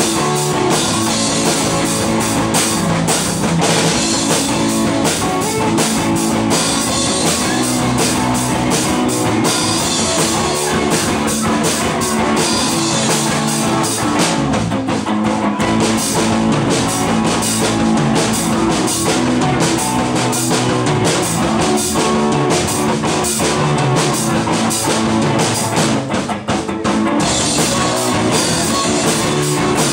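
Live rock band playing: guitar over a full drum kit.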